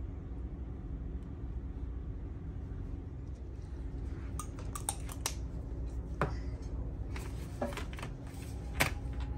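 Steady low room hum with a series of light, sharp clicks and clinks of small hard objects being handled, beginning about halfway in; the loudest click comes near the end.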